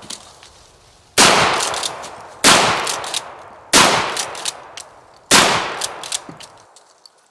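Remington Model 31 12-gauge pump-action shotgun fired four times in quick succession, each shot echoing away, with short sharp clacks of the slide being worked between shots; the action cycles nicely.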